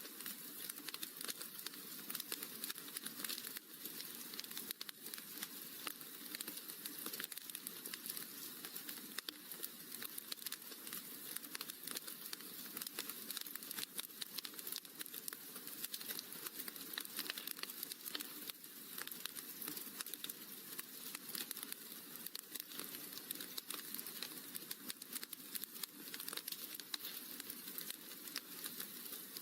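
Wood fire crackling steadily in a fireplace: a dense, even run of small pops and snaps.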